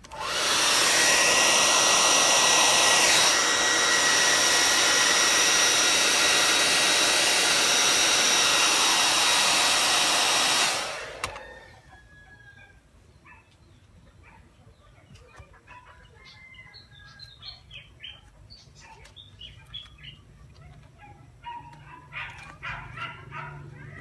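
Hand-held hair dryer blowing steadily at full speed for about ten seconds to heat and soften a leather wrap, then switched off. After it stops, only faint scattered ticks and rustles are left as the material is worked by hand.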